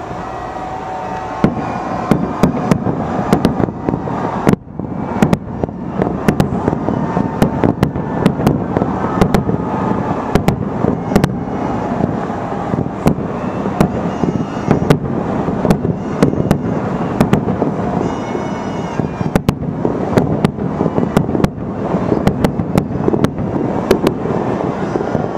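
A fireworks display going off in a fast, irregular barrage of sharp bangs and cracks over a continuous rumble. The bangs come thick from about a second and a half in.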